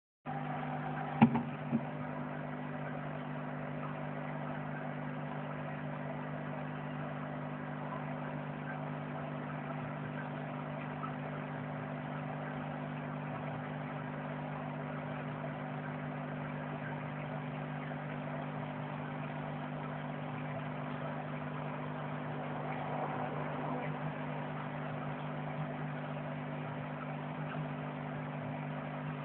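Steady electric hum of an aquarium pump, with two sharp knocks about a second in.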